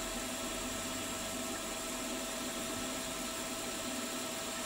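Milling machine running steadily, a constant motor hum with a thin high whine above it and no cutting.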